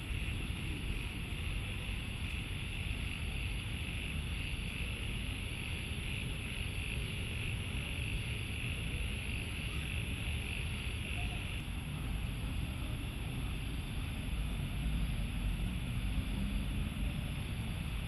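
Steady night ambience after rain: a continuous high, shrill drone typical of a tropical insect chorus, with wind rumbling on the microphone underneath. The shrill band eases off about two-thirds of the way through.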